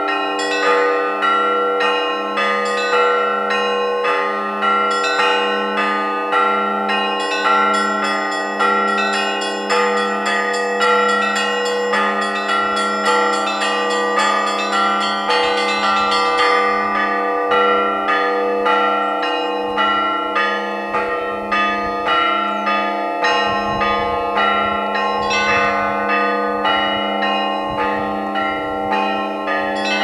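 Russian Orthodox church bells rung by a bell-ringer in a continuous peal. Clappers strike in a steady rhythm over the sustained hum of the lower bells, and the small high bells ring in quick patterns, busiest in the middle of the stretch.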